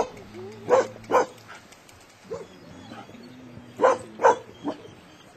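Young Koolie barking at sheep while herding: short, sharp barks, a pair about a second in, then three more around four seconds in.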